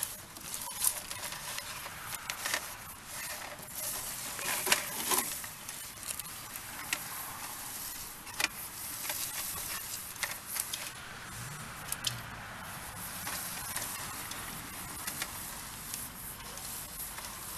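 Orange push cable of a sewer inspection camera being handled and fed by hand, giving scattered clicks and rubbing over a steady hiss.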